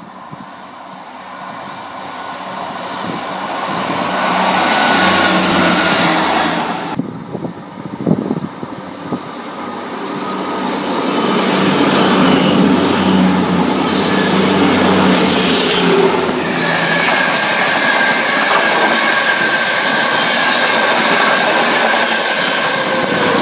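Passenger trains passing close by: a CrossCountry Voyager diesel multiple unit comes up and goes past with its underfloor engines running and its wheels on the rails, and then an East Coast InterCity 225's Mark 4 coaches go by. The noise builds for several seconds and breaks off sharply about seven seconds in. It builds again from about ten seconds and stays loud, with a steady high tone in the last part.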